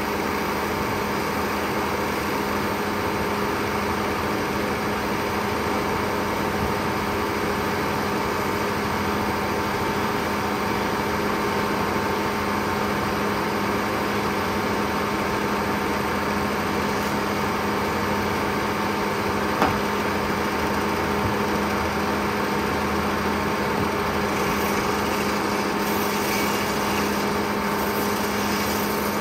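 Lane No. 1 circular sawmill running at a steady, unchanging pitch, with one short click about twenty seconds in.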